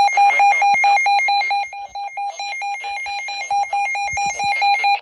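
Electronic alert alarm of a weather radio receiver, beeping rapidly in a steady pulsed tone of about four or five beeps a second, warning of a severe thunderstorm. It drops somewhat in level a little under two seconds in and cuts off abruptly at the end.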